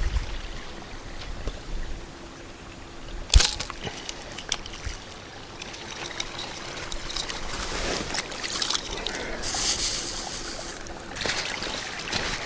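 Water sloshing and trickling, with one sharp knock about three seconds in, a few lighter clicks, and a short splash near the end.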